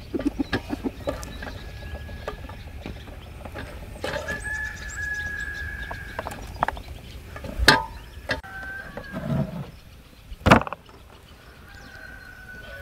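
Chickens clucking, with a few drawn-out calls, over small clicks and taps of food being handled. Two sharp knocks stand out; the louder comes about ten and a half seconds in.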